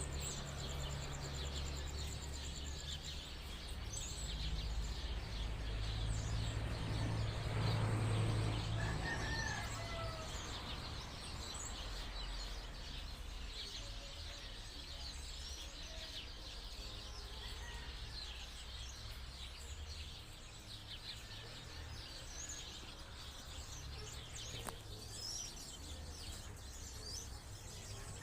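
A flock of black birds in trees, many short chirps and calls overlapping throughout. A low rumble runs underneath, swelling for a few seconds about a quarter of the way in.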